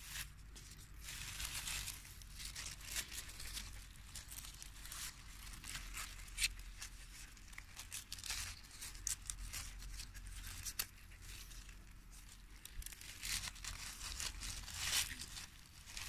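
Johnson grass leaves rustling and crackling as hands bend, twist and tear a leaf to knot it around a bundle of stems, with many sharp irregular crackles.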